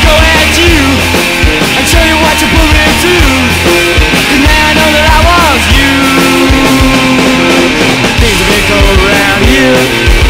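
Punk rock band recording playing loudly and continuously, with regular drum hits over a steady bass line and sliding pitched lines from guitar or voice.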